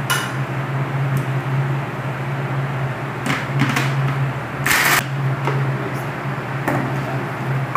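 A plastic blender jar and lid being handled: a few soft knocks, then one short, louder clatter about two-thirds of the way through, over a steady low hum.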